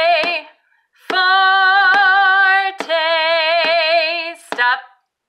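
A woman singing loudly in long held notes with vibrato, the 'forte' close of a children's dynamics song, over sharp thumps keeping a steady beat a little under once a second.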